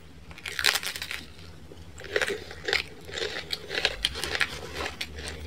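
Crunching bite into a thin-crust pizza, then chewing of the crispy crust. A cluster of crunches comes about half a second to a second in, followed by more irregular crunches as it is chewed.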